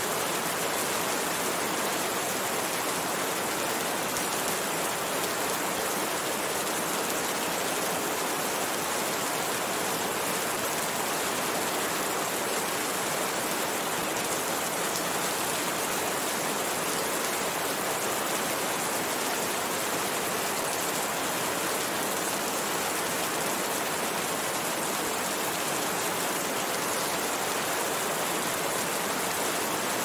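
Steady rain, an even hiss of many drops with no single taps standing out and no change in strength.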